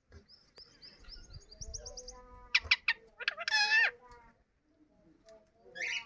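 Yellow Indian ringneck parakeet vocalising: a fast run of about ten high chirps climbing in pitch, then sharp clicks and a loud call about halfway through, and another short call near the end.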